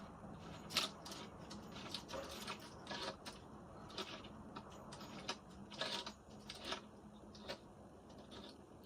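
Scattered light clicks and taps, irregularly spaced, from small hardware and tools being handled while fitting a drawer knob.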